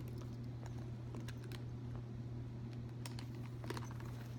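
A purse strap's clasps being hooked onto the handbag: a few scattered small clicks and taps, over a steady low hum.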